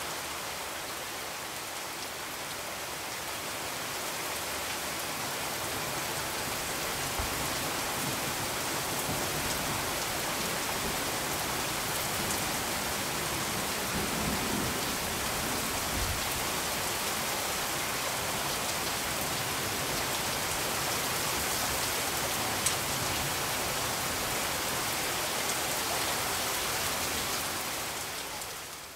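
Steady, even rain-like hiss with a few faint ticks in it, fading out near the end.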